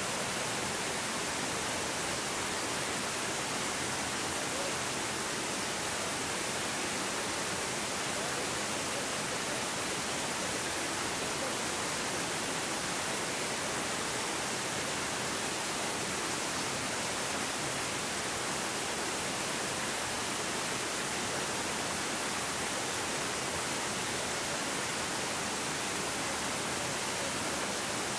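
A rocky stream rushing steadily, an even rush of water with no change in level.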